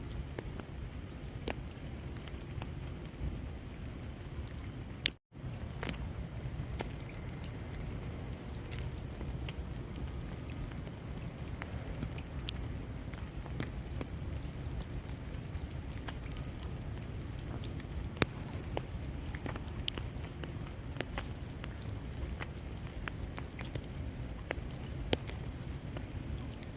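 Meltwater dripping and pattering from ice-coated trees and plants as the ice thaws: many irregular drips and light ticks over a steady low background noise.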